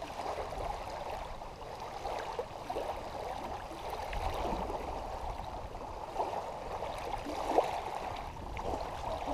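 Small waves lapping and splashing against a rocky shoreline: an even wash of water with a few sharper little splashes.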